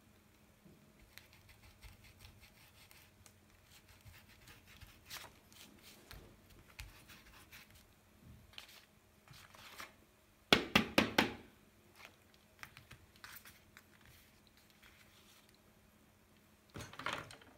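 Faint scratchy strokes of an art tool on paper, then about ten seconds in a short, loud burst of crinkling, and a softer one near the end.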